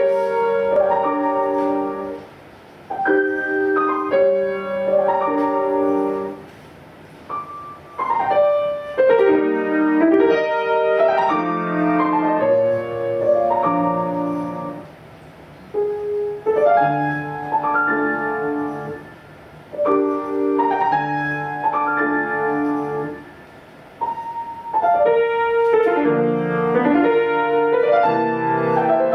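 Piano playing chords and melody in short phrases, each a second or two long, with brief pauses between them.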